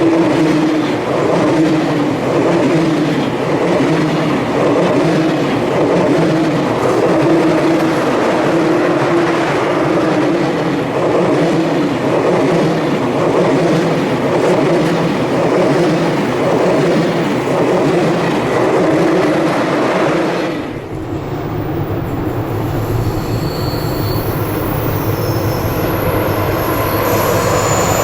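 An electric passenger train running past slowly on the rails: steady running noise with a wavering tone. About twenty seconds in, the sound cuts abruptly to a lower, duller train sound.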